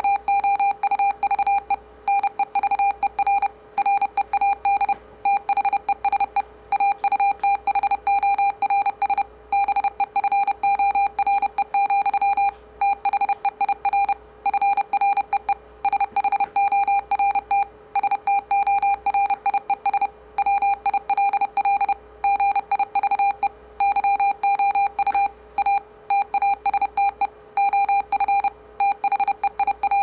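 Morse code sent at 30 words per minute as a square-wave audio tone through a speaker: a buzzy, mid-pitched beep keyed rapidly on and off in dots and dashes.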